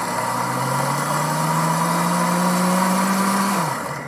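Pampered Chef Cooking Blender's motor running a margarita with no ice left rattling in the jar: the ice is fully crushed. The motor's pitch climbs slowly, then winds down and stops near the end as the blender is switched off.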